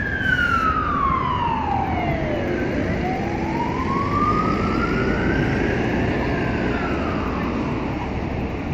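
Emergency vehicle siren wailing in slow sweeps over street traffic noise. It falls, rises again, then starts to fall and fade near the end.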